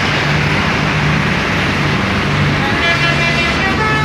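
Bus telolet horn, a set of musical air horns, playing its multi-note tune over a loud steady din. Low horn notes change every half second or so, and a higher chord of horn tones comes in about three seconds in.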